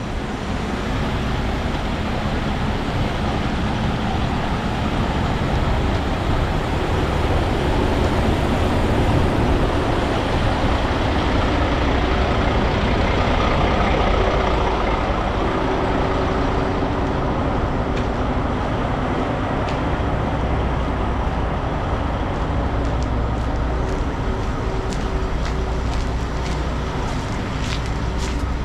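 Steady low rumble of heavy trucks and road traffic, with a few sharp ticks near the end.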